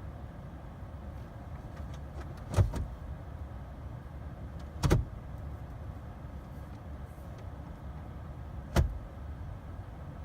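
Three sharp clunks from inside a Jeep that will not start, about two, four and eight seconds apart, over a low steady hum.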